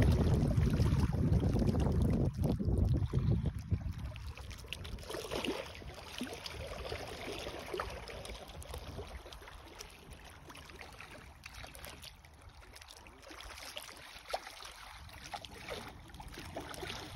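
Wind rumbling on the microphone for the first few seconds, then dying away to faint lapping water and light splashing from a hooked carp at the surface.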